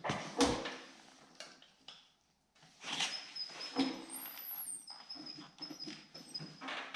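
Motorcycle tyre rubber creaking and squeaking under the steel shoe of a homemade lever-type bead breaker as it is stepped on to push the bead off the rim, with the loudest squeaks shortly after the start and again a little under four seconds in, and a brief lull about two seconds in.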